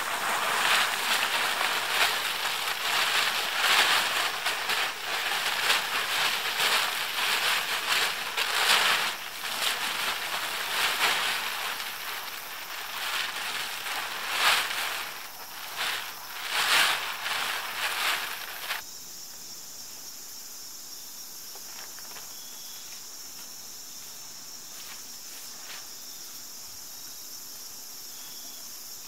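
Blue polyethylene tarp crinkling and rustling loudly as it is pulled and draped around the teepee poles, in uneven crackly bursts. After about 19 seconds it cuts off suddenly to a quiet, steady background with a thin high buzz.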